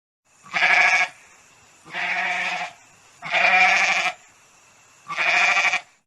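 An animal bleating four times, each call under a second long with a short gap between; the first and third calls are the loudest.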